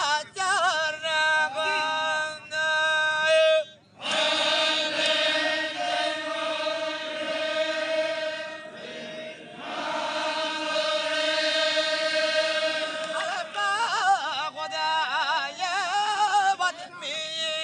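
Zikri chogan devotional chanting: voices singing long held notes with a wavering pitch. There is a short break about four seconds in, then the chant carries on.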